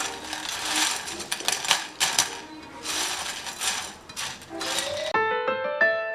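Crisp fried potato snacks rattling and crunching in repeated dry bursts about a second apart, over faint background music. About five seconds in, this cuts off abruptly and piano music plays alone.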